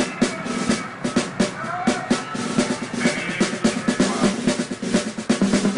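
Background music with a fast, busy drum beat.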